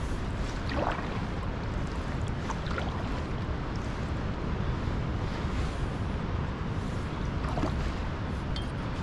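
Wind rumbling on the camera microphone over a steady wash of water while canoeing, with a few short higher sounds standing out about a second in, around three seconds in and near the end.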